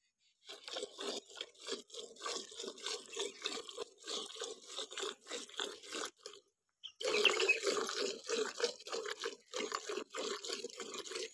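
Hand-milking a cow into a steel pail: milk squirts from the teats hit the milk already in the bucket in a steady rhythm of about two to three strokes a second. The rhythm breaks off briefly about six and a half seconds in, then resumes louder.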